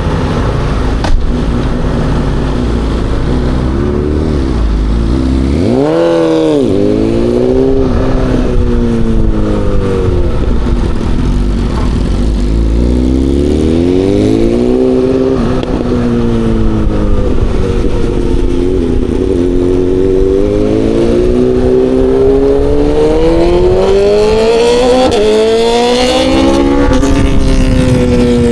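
Aprilia Tuono V4 motorcycle's V4 engine at speed on a track, revs climbing and dropping repeatedly through gearshifts and braking, with a quick high rev and fall about six seconds in.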